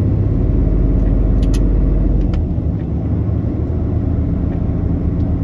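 Truck's diesel engine pulling uphill, heard from inside the cab: a steady low rumble that eases slightly about two seconds in, with two faint clicks near the middle.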